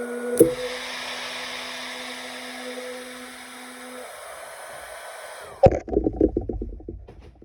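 Hot-air blower running with a steady whir and hum. There is a click shortly after the start, and the tone steps down about four seconds in. It cuts off suddenly about two seconds before the end, followed by a quick run of knocks and rattles that fade away.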